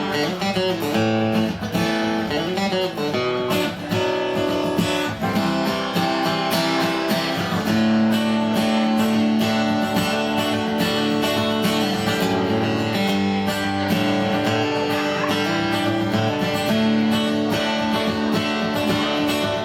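Live band playing an instrumental passage led by plucked and strummed guitars, with no singing.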